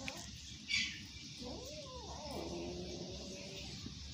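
Cat calling in a face-off with another cat over food: a short hissing burst about a second in, then a wavering meow-growl that rises and falls and settles into a low held tone.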